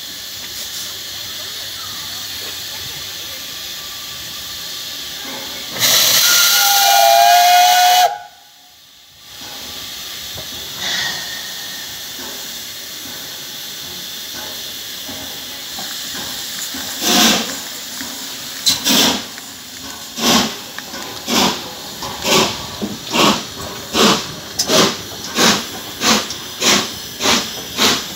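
Peppercorn A1 Pacific steam locomotive 60163 Tornado standing with steam hissing steadily, then one loud whistle blast about six seconds in that lasts about two seconds. From about seventeen seconds in it starts away: exhaust chuffs, slow and widely spaced at first, come steadily quicker as it gathers speed.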